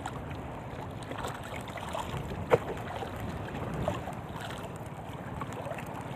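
Wind and small waves lapping against a small wooden canoe's hull on open sea, a steady wash, with one sharp knock about two and a half seconds in.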